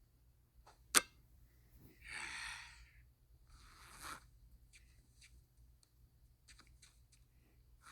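A sharp click, then two short rustling, scraping noises about a second apart, followed by a few faint scattered ticks.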